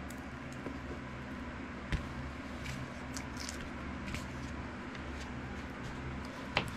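Steady low background hum with a few faint ticks, a light click about two seconds in and a sharper click near the end, from a folding chain-link crosscut saw being handled and unfolded.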